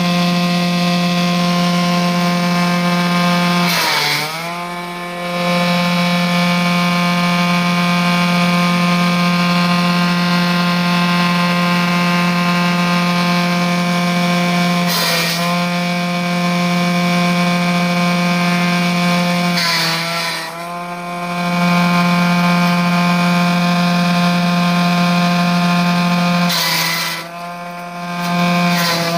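Forage chopper with steel blades, driven by a 2 hp electric motor, running at speed with a loud, steady whine. Four times the pitch sags and the sound dips briefly with a burst of chopping noise as the machine bogs down under load, then it picks back up to speed.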